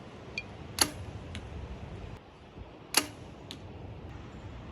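Two bow shots, each a sharp snap of the string, and each followed about half a second later by the fainter smack of the arrow hitting the target.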